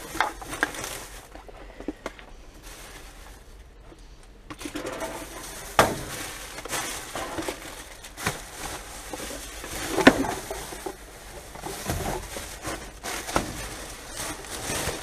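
Plastic rubbish bags rustling and crinkling as trash in a dumpster is rummaged through by hand, with scattered sharp knocks and clinks of shifted items. The loudest knocks come about six and ten seconds in.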